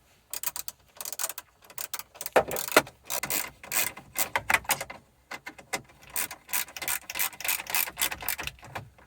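Hand ratchet clicking in irregular runs while tightening the mounting screws of a replacement climate control module in a car dash.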